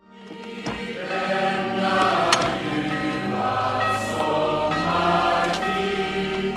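Choral music: a choir singing sustained chords, swelling up from silence over the first second.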